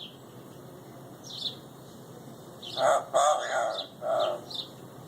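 Pet parrot vocalising: a few short, faint chirps, then a burst of three or four quick, speech-like squawky syllables about three seconds in, the bird mimicking human talk.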